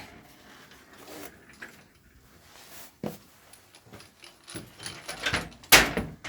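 A few scattered knocks and clunks of handling, like a wooden door or panel being moved, with the loudest sharp knock near the end.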